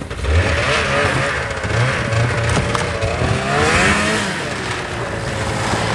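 Snowmobile engine revving, its pitch rising and falling as the throttle is worked, while the sled is stuck on a snowbank.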